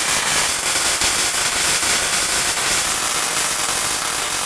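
Electric arc welding on an inside seam of a metal tank: a steady, loud crackling sizzle from the arc as a continuous bead is laid.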